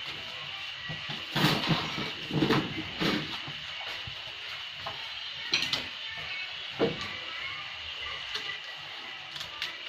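Engine parts and tools being handled during engine assembly: a few short knocks and clatters, bunched in the first three seconds and then two more single knocks, over a steady high whine in the background.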